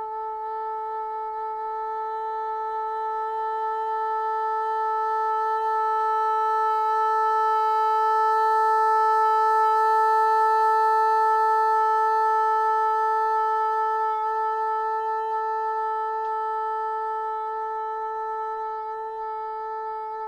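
Bassoon holding one long, steady note as a long-tone exercise, swelling to its loudest around the middle and then fading away. It is played with light lip pressure and the abdominal muscles engaged for breath support.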